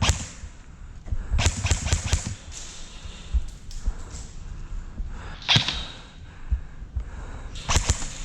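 Airsoft guns firing: sharp snapping shots, one at the start, a quick string of several about one and a half seconds in, another loud one past the middle and a pair near the end, with dull low knocks between them.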